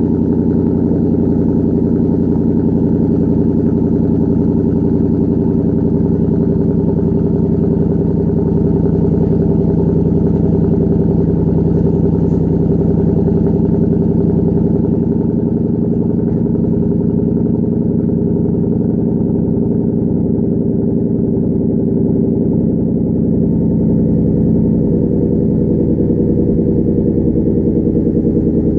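2014 Ford Mustang with a Borla aftermarket exhaust idling steadily, heard from behind the car at the exhaust.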